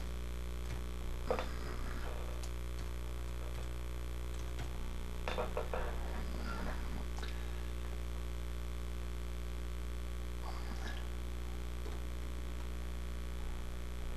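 Steady electrical mains hum, with a few soft laptop key and touchpad-button clicks as text is typed in, bunched about five to six seconds in.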